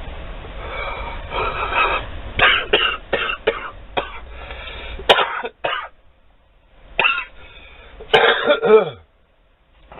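A man coughing and clearing his throat in a series of short, sharp fits, with a groan falling in pitch near the end, from the burn of a mouthful of wasabi paste.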